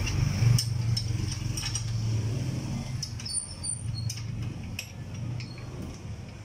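Light metallic clicks and a few brief high-pitched clinks from engine parts and tools being handled, over a steady low hum.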